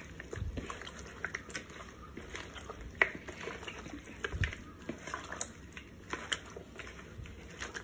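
Raw chicken pieces, wet with curd and spice marinade, being squeezed and mixed by hand in a plastic bowl: a string of soft, wet, irregular clicks and smacks.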